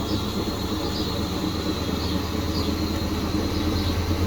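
Fisher & Paykel MW511 washing machine running mid-cycle: a steady low motor hum.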